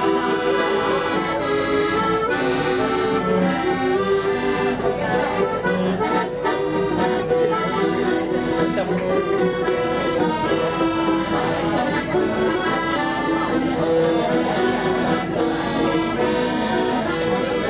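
Piano accordion playing a tune, a melody over held chords.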